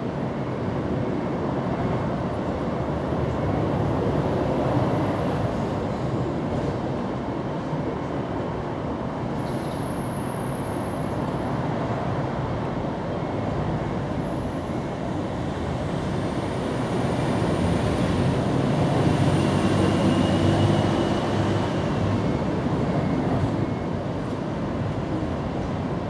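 Steady rumble of background traffic noise, growing louder for a few seconds about two-thirds of the way in.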